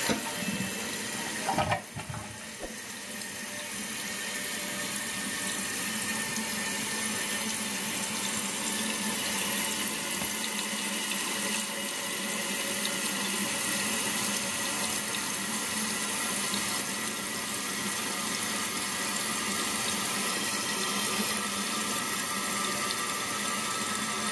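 Toilet flush draining away about two seconds in, then the tank refilling through a newly installed Fluidmaster 400A fill valve: a steady hiss of water running in as the level rises toward the adjusted float setting.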